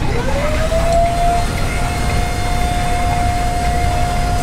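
Cotton candy vending machine's spinner head motor whining, its pitch climbing over the first second and a half and then holding steady while sugar floss spins out onto the stick, over a low rumble of background noise.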